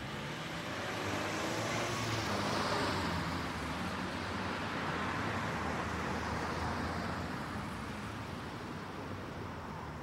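Distant outdoor activity ambience: a broad rushing noise over a low rumble that swells to its loudest two to three seconds in and then slowly fades away.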